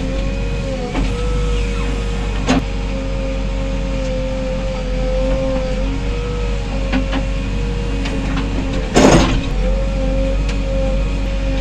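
A 74 hp bulldozer's engine running steadily with a wavering whine over a low rumble. There is a sharp clank about two and a half seconds in and a short hissing burst about nine seconds in.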